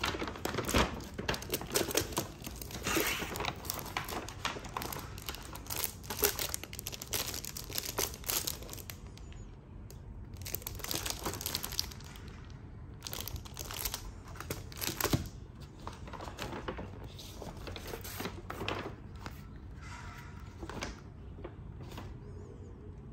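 Kraft paper shopping bag crinkling and paper rustling as stationery is lifted out and handled. Busy, near-continuous rustling for the first nine seconds or so, then shorter bursts with pauses, thinning out near the end.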